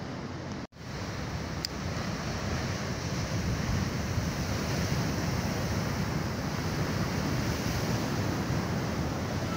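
Rough ocean surf breaking heavily on rocks, with a steady rush and wash of water and wind on the microphone. The sound cuts out for an instant about a second in.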